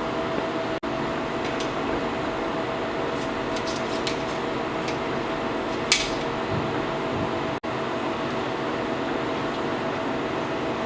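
Steady machine hum with a held tone, like a fan running, and a single sharp metallic click about six seconds in as a steel strip is worked into a hand-cranked slip roll. The sound cuts out for an instant twice.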